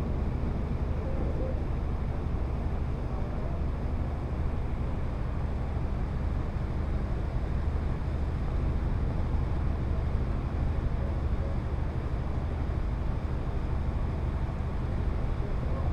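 Boat engine running at a steady speed: an even, low drone with a rush of noise over it.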